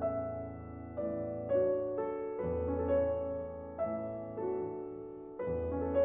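Background piano music: a slow, soft melody with new notes and chords struck about every half second to a second, each left to ring.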